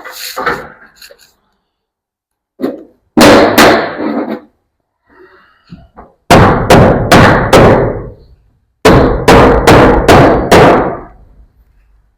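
Stained wood boards being nailed to a barn wall: loud wooden knocks, one near the start and one about three seconds in, then two quick runs of five and six strikes, each strike ringing briefly through the boards.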